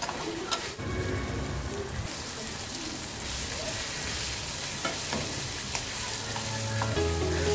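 Mussels in an onion masala sizzling as they fry in a metal kadai, stirred with a perforated metal spatula that scrapes and clicks against the pan now and then.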